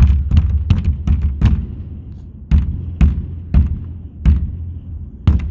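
Footsteps landing as sharp knocks, about three a second at first, then slowing to uneven steps about half a second to a second apart.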